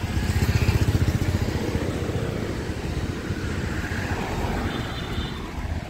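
Low rumble of road traffic passing, with an engine's fast pulsing, loudest about a second in and then steady.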